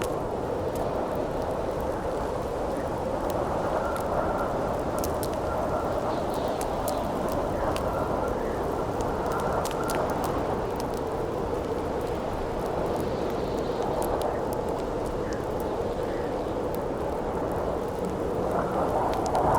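Howling wind as a steady rush, with a thin whistle from about four to ten seconds in, over the scattered sharp crackles of a burning wood campfire.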